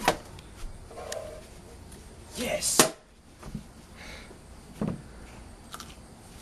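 A sharp clack as a wall-mounted mailbox is opened, then paper rustling as the mail is taken out and an envelope opened, with a louder rustling burst about two and a half seconds in.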